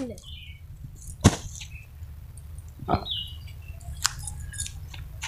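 Quiet outdoor background with a steady low rumble, a few light knocks about a second in and around three seconds in, and faint short bird chirps.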